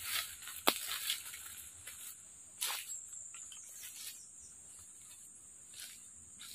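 Irregular footsteps crunching on dry leaf litter, the sharpest one about a second in, over a steady high-pitched insect drone.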